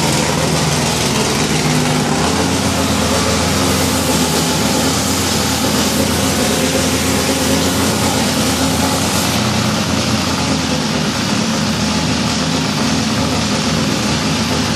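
Freshly rebuilt Ford engine, fed by carburettors with open velocity stacks, running steadily on its first start-up.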